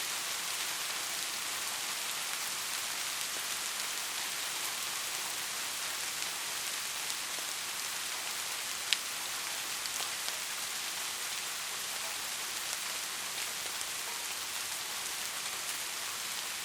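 Steady rain: an even hiss with scattered drops ticking, and one sharper, louder drop about nine seconds in.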